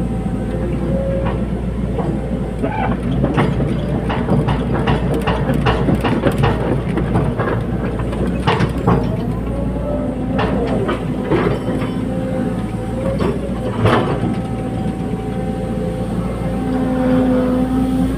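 Tracked excavator working: its diesel engine drones steadily under many metal clanks and knocks, thickest through the middle of the stretch.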